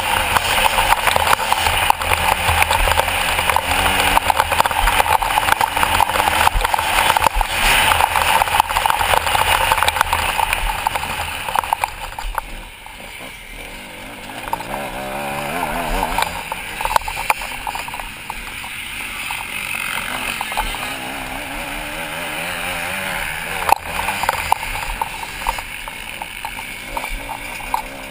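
Motocross bike engine heard onboard at race pace, running hard under throttle. About twelve seconds in the throttle closes and the engine note drops, then it rises and falls again as the throttle is worked.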